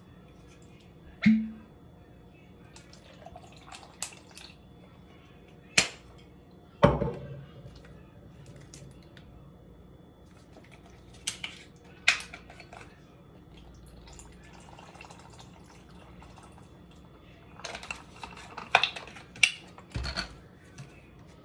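Scattered knocks, clinks and taps of cups and bottles being handled while a drink is mixed, with a brief ring from one clink about a second in and a few dull thuds.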